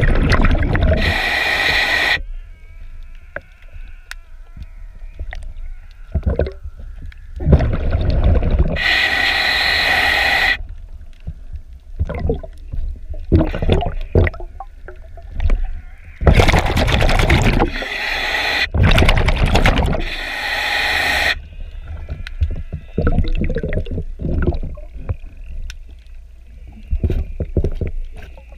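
A diver breathing through a regulator underwater: four loud rushes of exhaled bubbles, each two to three seconds long, with a faint wavering tone from inhaling in between. Scattered light clicks come in the gaps as a gloved hand wipes along the hull.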